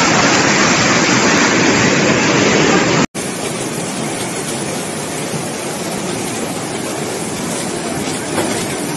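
Fast-flowing muddy floodwater rushing through a street, a dense steady noise of churning water. The sound cuts out for an instant about three seconds in, then the rushing goes on a little quieter.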